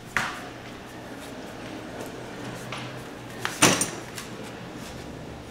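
A sharp knock just after the start, then a louder brief clatter about three and a half seconds in as a large black dog pushes its muzzle into a metal water bowl in a raised stand. Low, even room noise between the two.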